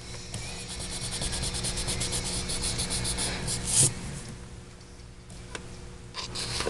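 An eraser rubbed quickly back and forth over drawing paper, about eight strokes a second, taking pencil lines off an inked drawing. A single knock comes about four seconds in, and a shorter spell of rubbing near the end.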